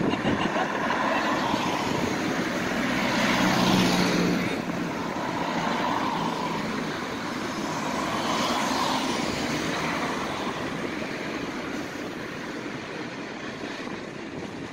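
Traffic passing on a wet road: a car goes by about four seconds in, then a van and a green double-decker bus pass about eight to nine seconds in, the bus engine running as it pulls away into the depot, with tyre hiss throughout.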